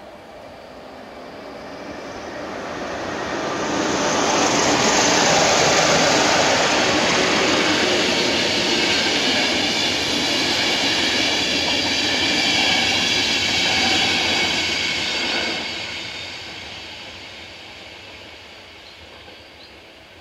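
Express passenger train behind a class 151 electric locomotive passing over the crossing. The wheels on the rails build up over the first few seconds and stay loud and steady for about ten seconds as the coaches go by. The sound then drops away and fades near the end.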